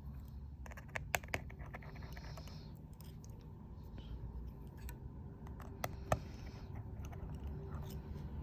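Light clicks and taps of small repair tools working on a phone's internal screws and brackets: a few sharp ticks about a second in and again near six seconds, over a low steady hum.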